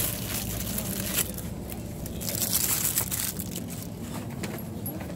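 Rustling and crinkling handling noise close to the microphone, loudest a little past the middle, over a steady low hum.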